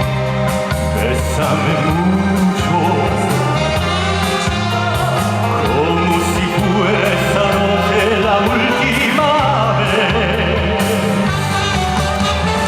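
Live pop band music with a steady bass beat and a singing voice.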